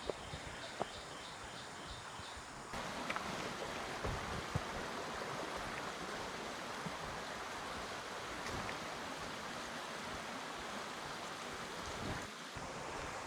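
Forest stream running steadily, a rushing of water that gets louder about three seconds in. Faint regular high chirps come before that change, and a few small knocks sound in the first five seconds.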